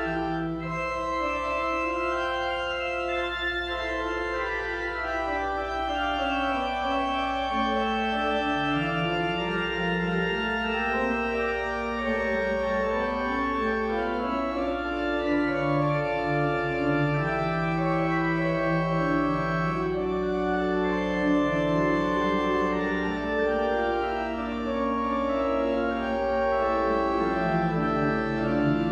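Organ music: sustained chords held over a slowly moving bass line.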